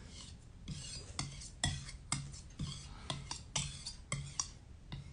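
Head knife blade stroked quickly back and forth across a whetstone, a short scrape about twice a second, as the edge is honed.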